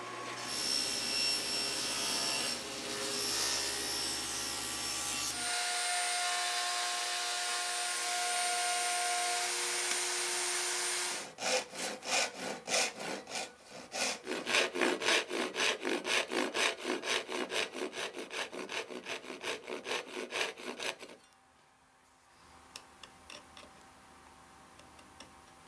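A power tool runs steadily for about ten seconds. Then a fine-toothed handsaw cuts through a wooden spline in quick, even strokes, about four a second, for some ten seconds. After that come a few faint ticks of a chisel paring the spline flush.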